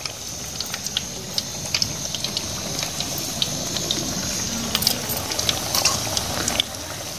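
Batter-coated potato slices deep-frying in hot ghee in a metal wok: a steady bubbling sizzle with frequent small crackles and pops.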